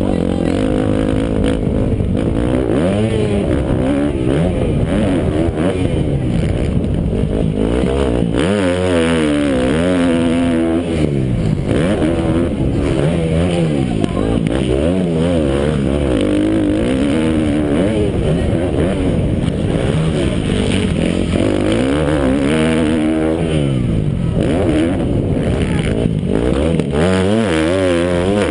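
Motocross dirt bike engines revving hard, their pitch climbing and dropping again and again as the bikes accelerate, shift and back off.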